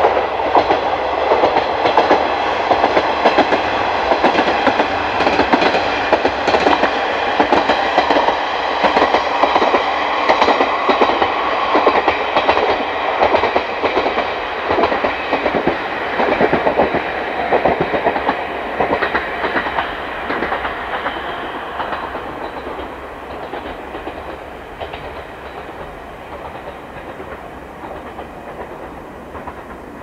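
JR Kyushu KiHa diesel railcar running along the line, its wheels clattering over the rail joints in a quick, uneven run of clicks. The sound is loud at first and grows steadily fainter over the last third as the train draws away.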